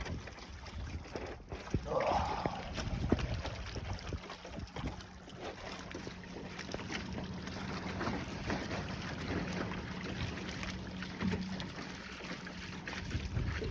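A boat's motor running with a steady low hum, which fades out near the end, while wind rumbles on the microphone.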